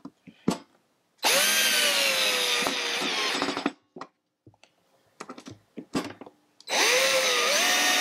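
Cordless drill driving screws through a metal piano hinge into a wooden drawer: two runs of motor whine of about two and a half seconds each, with small clicks in between. The pitch sags during the first run and dips then rises in the second.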